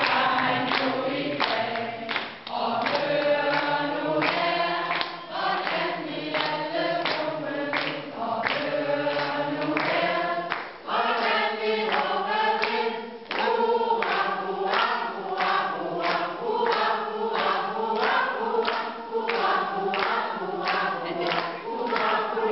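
A choir singing a song together.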